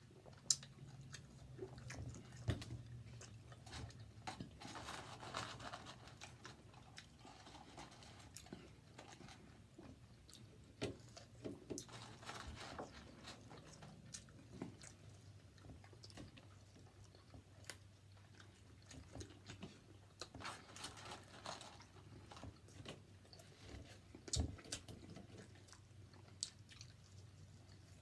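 A person chewing and biting a burger close to the microphone: scattered sharp mouth clicks and a few brief crunchy stretches, over a faint steady low hum.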